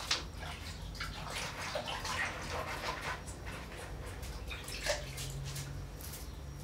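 Water splashing and dripping with irregular small knocks and clicks, as of hands or a tool being rinsed in a container.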